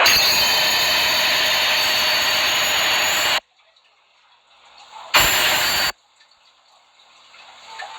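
A loud, harsh, distorted noise that cuts off suddenly after about three seconds, then near silence broken by a second short, loud blast lasting under a second.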